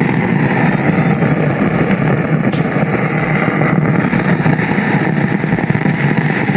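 F&D powered speaker giving out a loud, steady, rough noise strongest in the bass, in place of normal sound. The repairer puts the fault down to its old, dirt-filled bass volume potentiometer.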